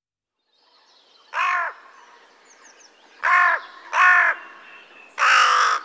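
Crow cawing four times: a single caw, a quick pair, then a longer, rougher caw near the end.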